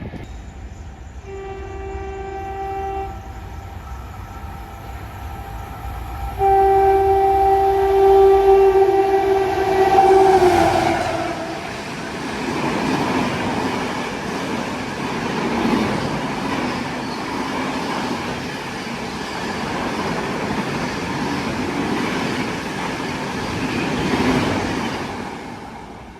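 Indian express train passing at high speed without stopping: the locomotive horn sounds a short blast, then a long one whose pitch drops as the engine goes by. The rush and rumble of the coaches follows.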